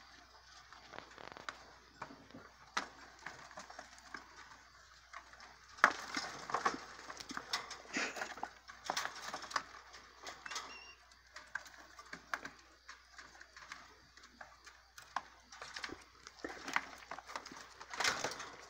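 Pet rats scrabbling on a wire cage: irregular clicks, taps and rustles as their claws grip and rattle the bars, with a brief high squeak near the middle.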